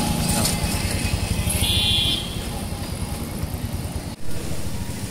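Street traffic noise with a motor vehicle engine running close by, a fast low pulsing throughout. A brief high-pitched tone sounds about two seconds in.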